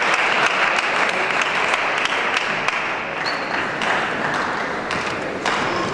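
Audience applauding a won point in a table tennis match, the clapping dying away near the end.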